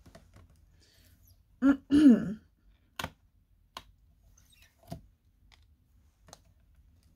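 A short wordless vocal sound, like a throat clear or hum, about two seconds in, followed by several sharp plastic clicks and taps as the clear acrylic lid of a My Sweet Petunia stamp positioner is lifted and set down.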